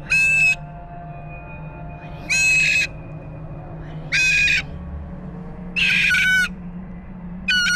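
Umbrella cockatoo calling five times, each a loud, even-pitched call about half a second long, repeated about every two seconds.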